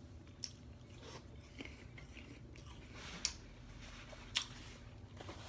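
A person eating quietly, chewing with a few faint sharp crunches spread through it.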